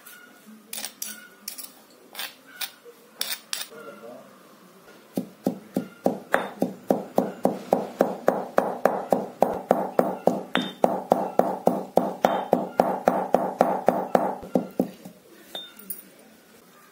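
A metal pestle pounding dry red chillies, coriander seeds and garlic in a stone mortar. A few scattered clinks of a spoon stirring the mix come first. About five seconds in, rapid, even strikes begin, around four a second, each with a short metallic ring, and they stop near the end.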